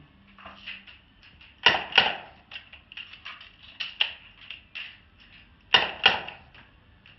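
A revolver being worked: a run of sharp light clicks and taps, with two louder pairs of snaps, one pair about two seconds in and another near the end.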